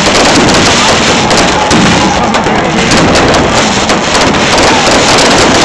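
Fireworks going off in a dense, continuous barrage of rapid bangs and crackling, loud enough to overload the microphone.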